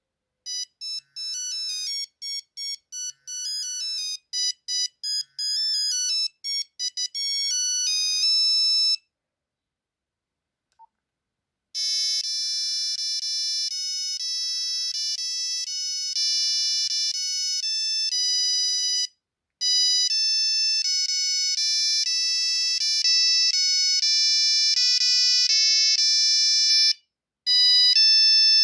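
Nokia 3310 mobile phone playing its ringtones, high-pitched electronic melodies. A quick tune of short notes plays and stops about nine seconds in. After a short pause with one tiny beep, a second melody of held notes repeats, breaking off briefly twice as it loops.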